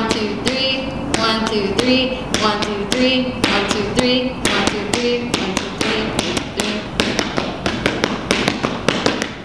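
Sneakers stamping and tapping on a studio floor in the three-step huapango footwork, a quick, even run of taps in a repeating 1-2-3 pattern.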